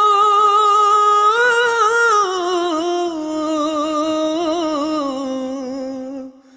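A singer's voice holds one long, ornamented note in a Hindi romantic song. The note wavers and slowly falls in pitch, then fades out near the end.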